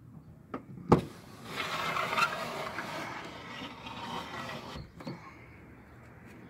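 A sharp click, then a car's rear door window glass lowering in its channel for about three seconds with a steady rubbing, sliding sound. It stops with a click.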